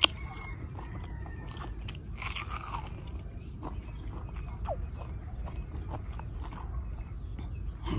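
A person chewing soft mango flesh close to the microphone: wet mouth sounds and small clicks, with a noisier stretch about two seconds in.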